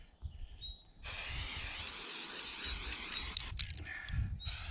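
Aerosol spray-paint can hissing in two bursts: a long one of about two and a half seconds, then a shorter one starting near the end.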